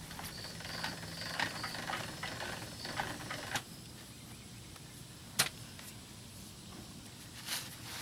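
Footsteps and rustling in grass as a person walks up and kneels, with one sharp knock about five and a half seconds in. An insect chirps in short repeated pulses during the first three seconds.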